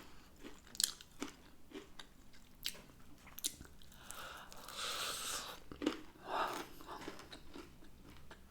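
Close-up eating sounds of crispy breaded hot and spicy chicken wings being bitten and chewed: irregular crunches and wet chewing clicks, with a longer crackling stretch about halfway through.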